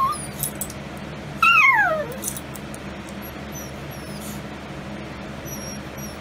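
A Chihuahua whining: a short cry at the start, then a louder drawn-out whine that slides down in pitch about a second and a half in.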